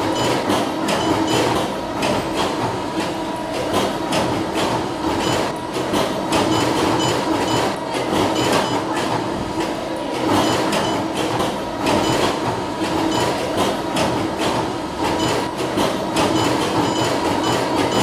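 Workshop machinery running: a steady mechanical clatter of rapid clicks over a constant hum, with no pauses.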